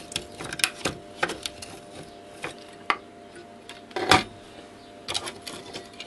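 A screwdriver prying and levering at a transformer soldered to a circuit board, giving irregular sharp clicks and scraping knocks of metal on metal and plastic. The loudest knock comes about four seconds in.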